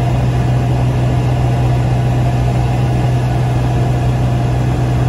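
Aircraft engine drone heard inside the cabin: a loud, steady hum with a constant low tone, unchanging throughout.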